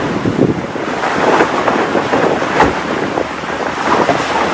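Wind buffeting the microphone: a loud, rough rush with irregular gusts.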